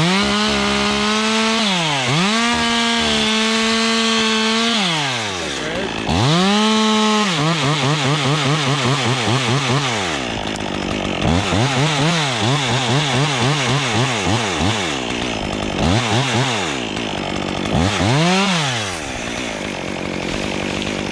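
Stihl MS 201 top-handle two-stroke chainsaw revved high in several bursts, its pitch dropping and warbling between them as the chain cuts through wood.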